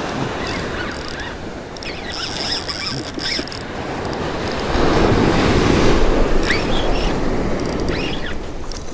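Small surf waves breaking and washing up onto the sand close by, with wind buffeting the microphone; the wash swells loudest about five seconds in.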